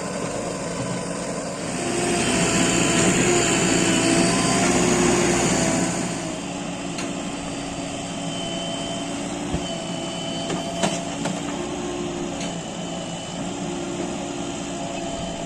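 JCB 3DX backhoe loader's diesel engine running, revving up about two seconds in for some four seconds, as when working the hydraulics, then settling back to a steady run. A few sharp knocks come around the middle.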